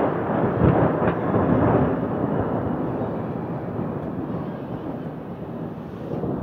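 Thunder rolling: a loud, deep rumble that swells in the first second or two, then slowly fades.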